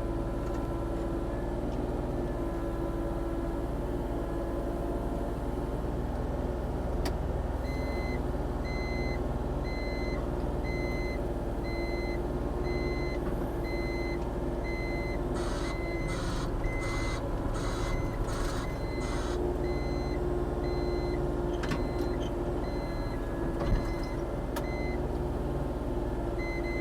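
Volvo ECR40D mini excavator's diesel engine running steadily while digging. An electronic alarm beeps about every two-thirds of a second from about a quarter of the way in until near the end. A run of about six short noisy pulses comes around the middle.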